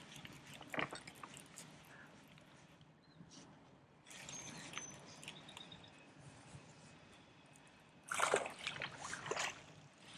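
Hooked largemouth bass splashing and thrashing at the water's surface as it is reeled in close to the bank, a burst of splashes about eight seconds in. Before that only faint water and handling noise.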